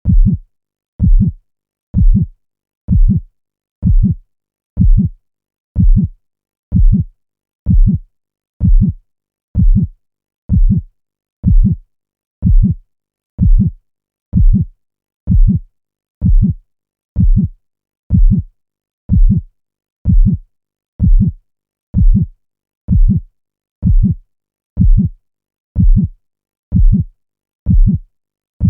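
Heartbeat sound effect: a steady, even pulse of low thuds at about one beat a second, each beat a quick double thump, with silence between beats.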